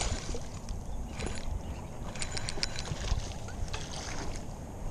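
A small bass splashing at the water's surface as it is reeled in on a jerkbait, over a steady low rumble, with a quick run of sharp ticks a little past two seconds in.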